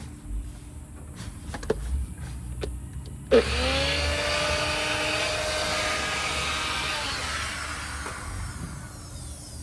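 A few light clicks as the Magic Bullet blender is set on its base, then its electric motor starts about three and a half seconds in with a quickly rising whine and runs steadily, dying down near the end.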